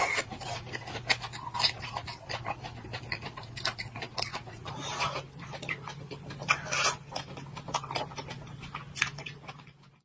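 Mouth sounds of eating ice-cream bars: wet sucking and biting on the frozen bars, with many small sharp clicks, over a steady low hum.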